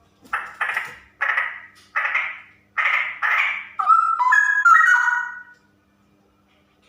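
Female straw-headed bulbul calling: about six harsh, scratchy notes in the first four seconds, then a quick run of clear warbling whistled notes that stops about five and a half seconds in.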